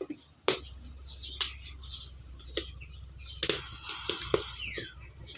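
Insects droning steadily in a high pitch, with birds chirping now and then and several sharp clicks.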